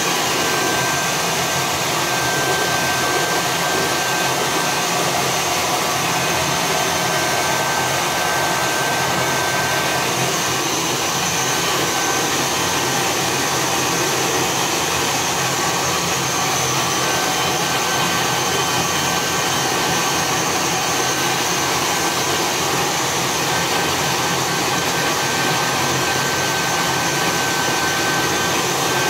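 Handheld hair dryer running steadily: a continuous rush of blown air with a thin, steady whine.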